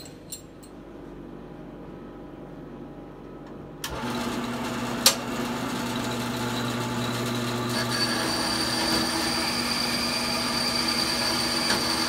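Small horizontal metal-cutting band saw starting suddenly about four seconds in and running steadily, its motor and blade giving a steady hum, with a single sharp click a second later and a high whine joining near the middle.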